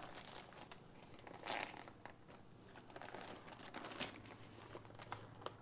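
Zip-top plastic bag of cured salmon eggs crinkling faintly as it is squeezed and handled, with a few slightly louder rustles about a second and a half in and again around four seconds.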